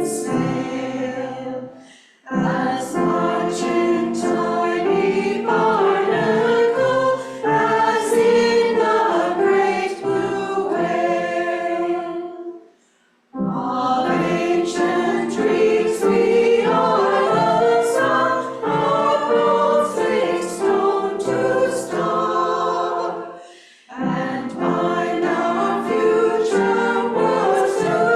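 Choir singing in harmony, several voices together, with three short breaths between phrases.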